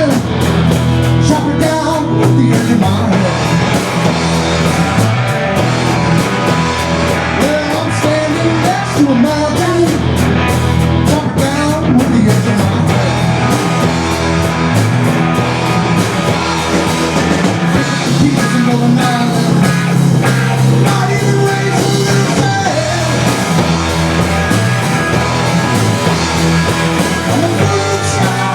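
Rock music: a band with electric guitar, bass and drums playing steadily, with guitar lines that bend up and down in pitch.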